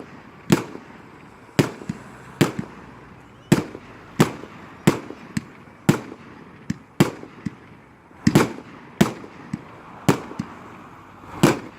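Fireworks exploding in an irregular string of sharp bangs, about one or two a second, each with a short echoing tail.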